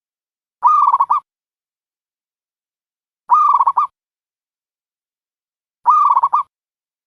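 A dove calling: three short, rapid pulsed coos, each about half a second long and about two and a half seconds apart, all at the same pitch with dead silence between them.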